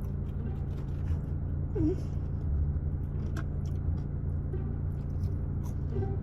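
Steady low hum of a car idling, heard inside the cabin, with scattered faint clicks and taps.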